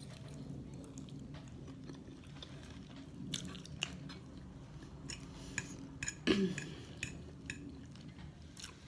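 A person chewing and biting food close to the microphone, with many small wet clicks and crunches over a low steady hum, and one louder brief noise about six seconds in.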